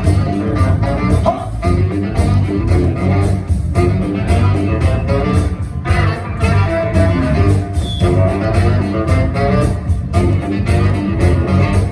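Live blues band playing an instrumental intro: electric guitar over bass and drums with a steady beat.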